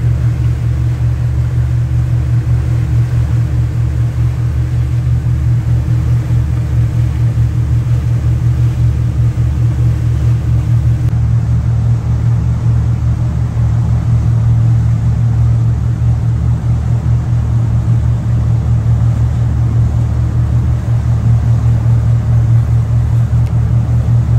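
Boat engine running at a steady speed: a low, even drone with a fast pulse.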